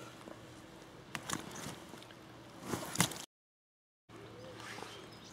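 Handling noise as a large mirror carp is gripped and lifted by hand: rustling with a few knocks, the loudest a sharp one about three seconds in. It is followed by a short stretch of dead silence, then a bird calling.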